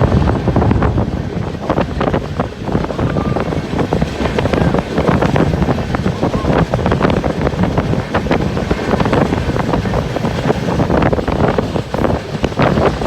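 Wind buffeting the microphone: a loud, continuous rumble broken by irregular gusts.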